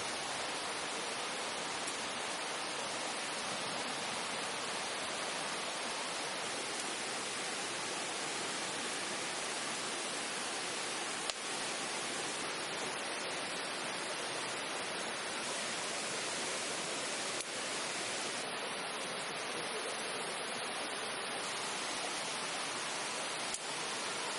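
Steady, even rushing noise with three faint single clicks, about eleven, seventeen and twenty-four seconds in.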